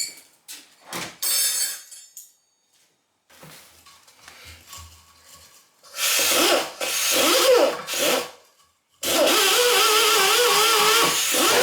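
A small handheld power tool cleaning a steel wheel rim: run in short bursts, then held on steadily from about nine seconds in, its pitch wavering as the load changes.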